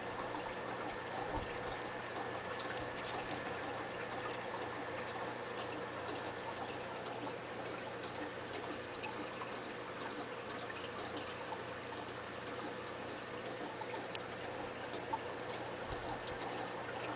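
Aquarium filter running: a steady trickle and pour of water, with a faint steady hum under it.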